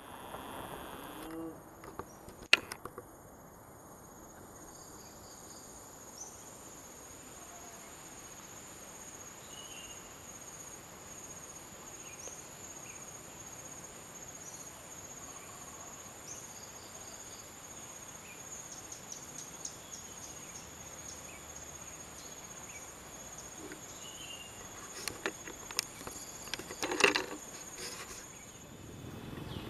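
Insects drone in a steady high-pitched whine, with a single sharp click about two and a half seconds in and a short run of clicks ending in a louder knock near the end.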